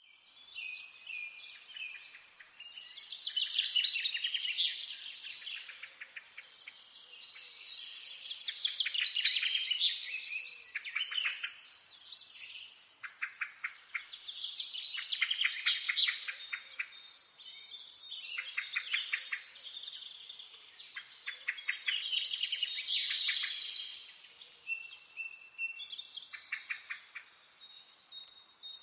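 Songbirds singing in a forest, with rapid trilled phrases a couple of seconds long repeating every few seconds and a few high thin whistled notes between them.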